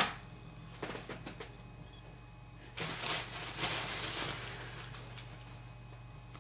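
A few light clicks, then about a second and a half of soft rustling that fades away: fly-tying materials being handled at the bench.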